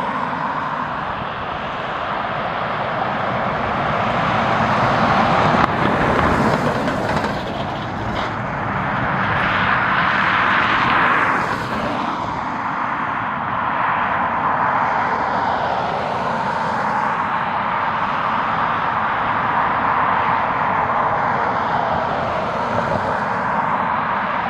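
Airliner passing close by with a continuous engine rush that swells to its loudest about six to eleven seconds in, then eases to a steady roar.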